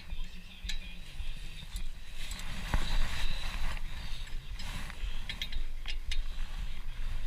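Ratchet wrench clicking and metal tools clinking while a brake caliper bolt is worked loose, with a quick run of clicks about five seconds in.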